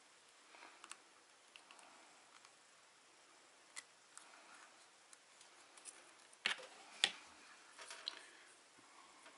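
Faint close handling of thin wires and a snap-off hobby knife against a small plastic drone body while stripping wire. There are scattered light clicks, and two sharper clicks about six and a half and seven seconds in are the loudest.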